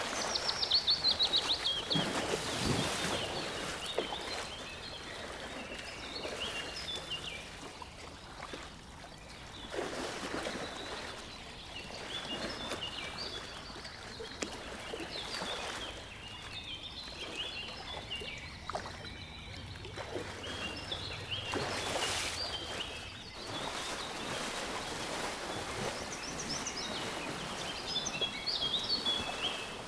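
Small birds chirping and singing in short, high phrases scattered throughout, over a steady outdoor background hiss that swells in places.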